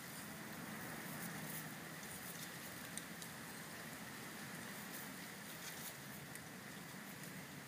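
Boxer puppies wrestling in grass: faint rustling and scuffling with scattered soft ticks, over a steady background hiss, and a sharper click about three seconds in.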